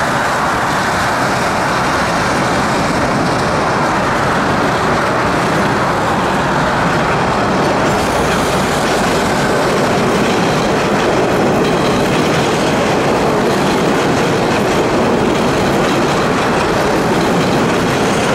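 MBTA Orange Line rapid-transit train running past on the track: steady wheel-on-rail noise at an even level.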